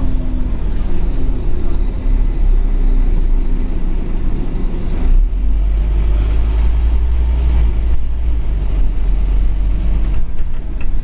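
Scania OmniCity N230UD double-decker bus under way, heard from the upper deck: its diesel engine and road noise make a steady low rumble that grows heavier about five seconds in.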